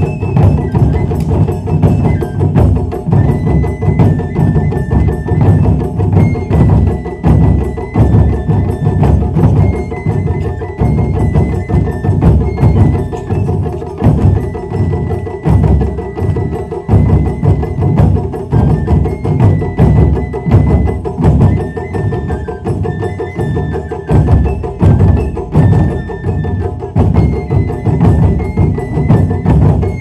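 Wadaiko (Japanese taiko drums) played by an ensemble in a fast, dense, steady rhythm of deep strokes, with a high melody line held and stepping above the drumming.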